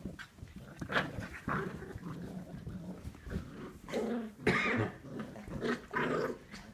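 Two poodle puppies play-fighting, giving short growls in irregular bursts, the loudest about four and a half seconds in.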